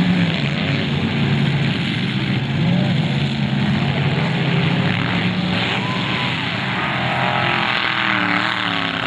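Several demolition derby cars' engines running and revving together in a loud, steady din.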